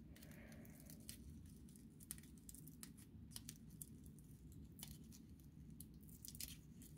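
Faint crackle and rustle of dry raffia strands being pulled apart and fluffed with the fingers, in short scattered ticks over near-silent room tone.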